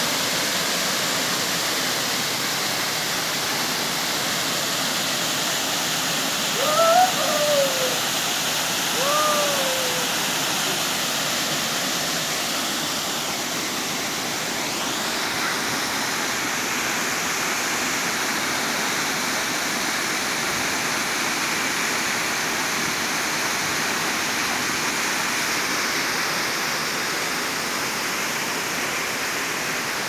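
Waterfall pouring steadily into a rock pool: a continuous, even rush of falling water.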